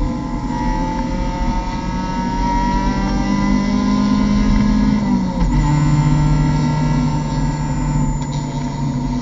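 Mazda MX-5 Cup race car's four-cylinder engine heard from inside the cockpit, pulling hard under throttle. Its pitch climbs slowly, then drops sharply about five seconds in at an upshift, and it pulls on steadily in the higher gear.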